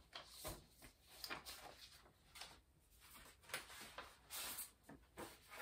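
Faint, intermittent rustling and sliding of paper as sheets are set down and a manila envelope is drawn out of a folder.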